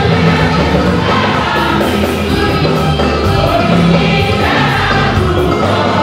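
Large church congregation singing a gospel song together in chorus, loud and steady throughout.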